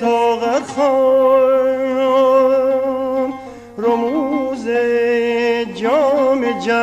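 Male voice singing Persian classical avaz in the Shur mode: long held notes with vibrato, with quick wavering ornaments about four and about six seconds in.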